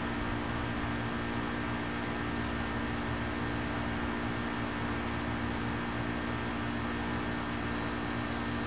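Steady background hum with a constant hiss, unchanging throughout.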